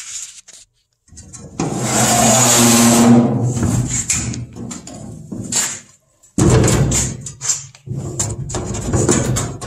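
Loose wheels of a steel lawn cart rattling and scraping on an axle they don't fit. It comes in two long spells with a short break near the middle.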